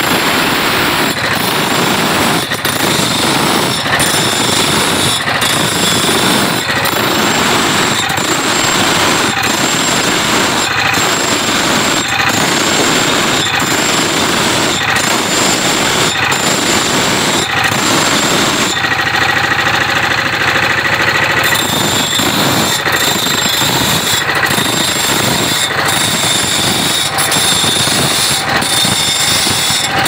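Stationary diesel engine chugging steadily and driving a belt-driven grinding wheel that grinds the teeth of a sawmill blade, the abrasive grinding and the engine's even knocking mixed together.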